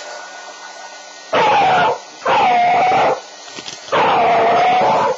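Beagle puppy howling three times in fear of a running blow dryer; each cry falls in pitch and then holds, the last one the longest. The hair dryer's steady hiss runs underneath.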